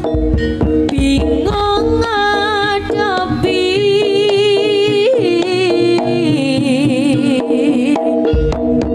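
Live East Javanese jaranan music: kendang barrel hand drums beating under a continuous melody of bending, wavering notes.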